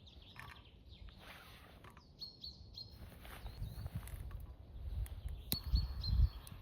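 Small birds chirping, short high chirps repeated throughout. Low rumbling noise on the microphone grows in the second half, with a sharp click near the end.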